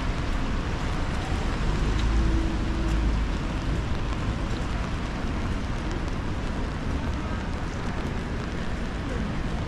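Wet city street ambience in light rain: a steady hiss of rain and traffic on wet road, with a low rumble of wind on the microphone. It swells briefly about two seconds in.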